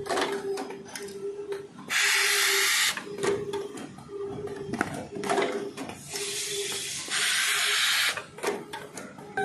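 Automatic brazing stand for diamond saw blade segments running through its cycle: two hissing bursts of about a second each, with short clicks and a faint hum that switches on and off.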